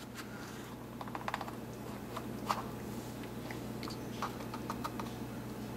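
Light plastic clicks and taps of a small spice container of cream of tartar being handled and opened, scattered irregularly over a steady low hum.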